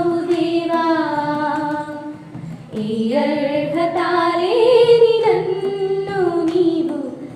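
Women's voices singing a Telugu Christian hymn, drawing out long held notes at the end of a line, with a short breath pause about two and a half seconds in.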